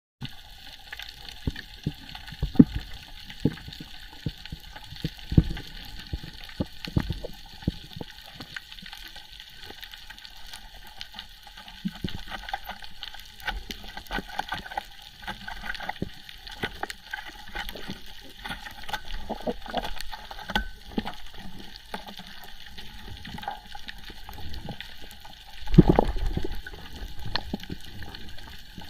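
Water sound: rushing and gurgling with many scattered clicks and crackles, and one louder rush of water about 26 seconds in.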